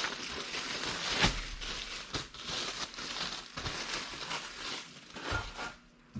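Bread bag crinkling and rustling as an Italian loaf is handled, with scattered sharper crackles, the loudest about a second in; it stops near the end.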